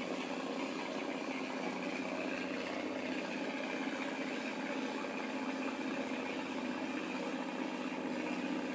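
Boat engine running steadily at a low, even speed, a constant hum with no change in pitch.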